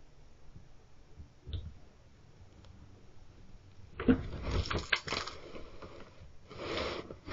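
A black bear knocking over a wooden storage box: a loud clatter of knocks and thuds about four seconds in, then a second stretch of scraping and rustling near the end.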